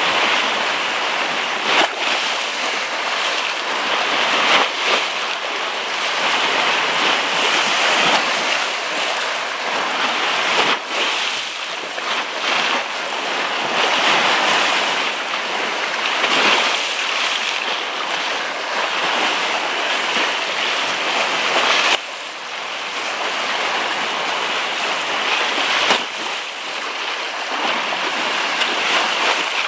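Steady rushing of waves and surf on a rough sea, swelling and easing, with a few abrupt breaks.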